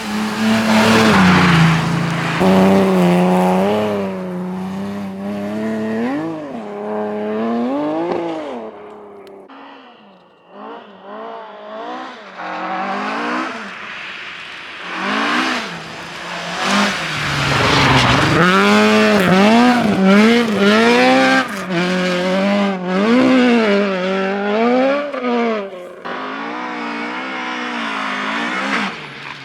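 Rally cars driven hard on a stage, engines revving up and dropping back again and again through gear changes and lifts. One car is loud for the first few seconds and fades out around ten seconds in. A second comes in about halfway and revs hard through a quick series of rises and falls.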